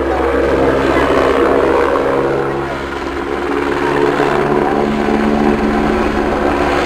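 Eurocopter AS350 B3 Ecureuil helicopter in flight: the three-bladed main rotor beats and the single turboshaft engine runs. The sound is loud and steady, dips a little about halfway through and then swells again as the helicopter banks overhead.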